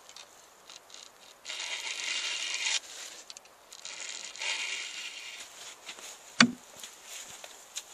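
Round chainsaw file rasping across the cutters of a ripping chain on a Stihl chainsaw bar, in two long strokes. A single sharp knock comes about six and a half seconds in.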